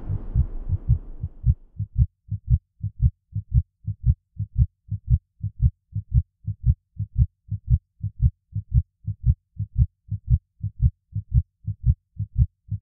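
Heartbeat sound effect: low double thumps, lub-dub, repeating steadily a little under twice a second, after a wash of noise that fades out in the first second or so. It stops abruptly just before the end.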